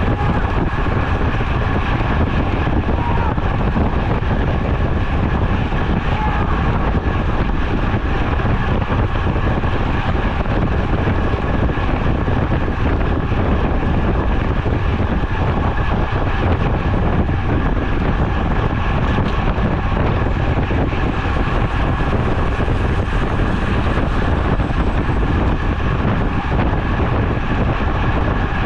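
Steady rush of wind over the microphone of a camera mounted on a road bicycle riding at racing speed.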